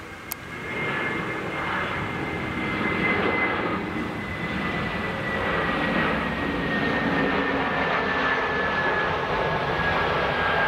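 Twin-engine Airbus A320-family jet airliner on final approach and flare, its engines at low approach thrust: a steady rushing jet noise with a high fan whine that slowly falls in pitch. A brief click sounds just at the start.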